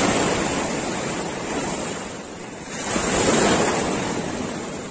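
Small waves washing through shallow surf right at the microphone: the rush of water swells, ebbs, and swells again about three seconds in.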